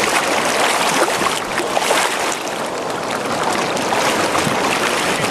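Fast river water rushing and churning, with splashing at the surface where a hooked fish thrashes.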